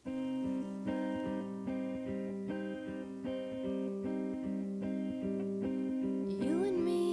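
Music starts: strummed guitar chords changing in a steady rhythm. Near the end a voice comes in on a rising note.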